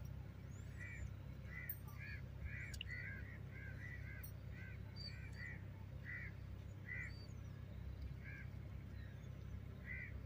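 Faint birdsong and calls from several birds: a run of short, repeated calls, two or three a second, with a few thin higher chirps over them and a steady low rumble underneath.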